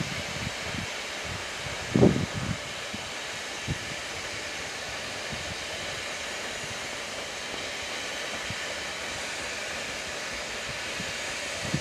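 SDJR 7F 2-8-0 steam locomotive approaching with its train, a steady hiss with no clear beat, broken by a short low knock about two seconds in.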